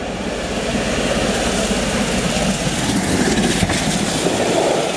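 BR Standard Class 7 steam locomotive 70000 Britannia passing at speed just beneath, a loud, steady rushing rumble.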